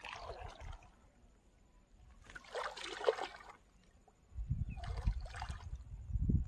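Water sloshing and trickling in three short bursts as a man wades through shallow water, with a low rumble from about two thirds of the way in.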